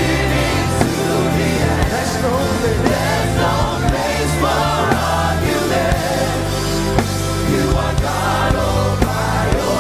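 Live gospel worship music: voices singing over a band with a steady bass line and drums.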